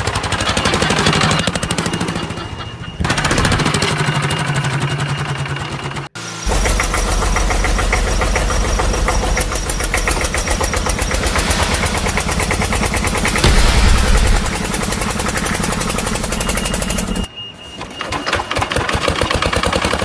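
An engine running with a rapid, even chugging, in several clips that cut off abruptly from one to the next.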